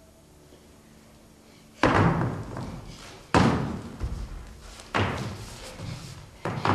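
Four heavy slams, evenly spaced about a second and a half apart, each dying away with a short echo.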